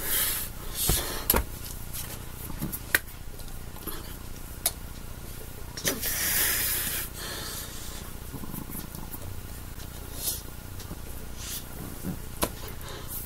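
Hands and sweatshirt sleeves brushing, rubbing and tapping against each other during sign language, with scattered sharp taps and a longer rustle about six seconds in, over a low steady room hum.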